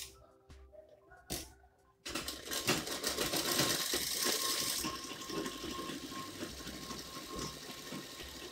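Motor-driven household sewing machine starting up about two seconds in and running steadily as it stitches a seam, with a steady whine under the needle clatter. It is louder for the first few seconds, and a couple of light clicks come before it starts.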